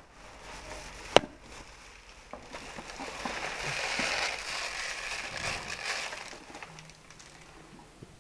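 Used Sanibird silica cage sand, mixed with seed husks and droppings, poured from a canary cage's bottom tray into a plastic bag: a hiss of running grit that swells for a few seconds, then fades. A sharp knock comes about a second in.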